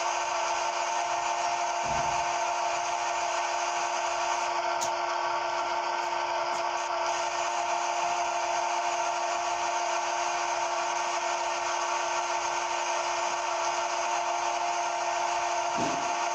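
CNC machine running steadily with a constant whine of several fixed tones over a hiss, plus a brief low knock about two seconds in and another near the end.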